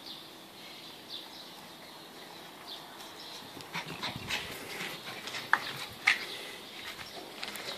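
Border collie puppies whimpering faintly, then a busier stretch of clicks and knocks from paws and a plastic ball on the tiled floor, with two short sharp yips about five and a half and six seconds in.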